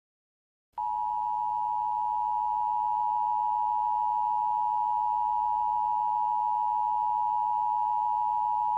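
Emergency Alert System attention signal: a steady two-tone alarm just under 1 kHz, starting about a second in and held unchanged for about eight seconds.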